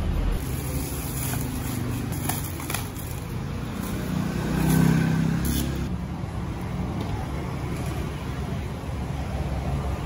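Steady low mechanical rumble, like an engine running nearby, swelling for a moment about five seconds in. A few faint light clicks sound over it.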